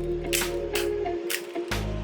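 Background music with a steady beat: held bass notes under sharp, regular percussion hits.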